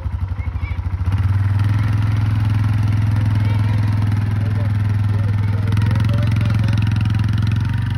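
Yamaha utility ATV's single-cylinder engine idling with an even pulse, then about a second in picking up to a louder, steady running note as the quad pulls away, easing off near the end.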